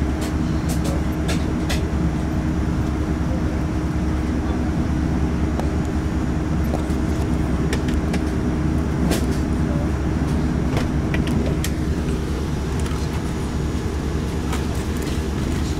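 Steady low rumble of engine and airframe noise inside the cabin of a Boeing 787 airliner, with scattered light clicks and rattles.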